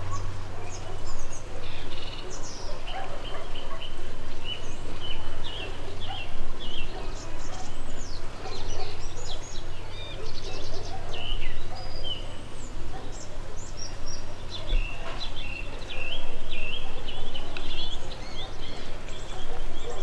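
Many small birds chirping and calling together, lots of short, high notes overlapping throughout, over a steady low hum.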